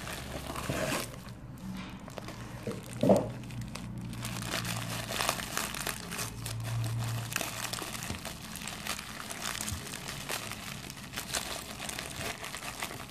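Plastic bubble wrap and paper wrapping crinkling and rustling in irregular crackles as an action figure is pulled out and unwrapped by gloved hands. A brief louder sound comes about three seconds in.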